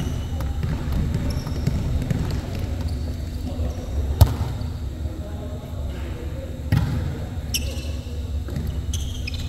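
A volleyball being hit and bouncing during play in a large sports hall: a few sharp hits, the loudest about four seconds in, over a low hum of players' indistinct voices and movement.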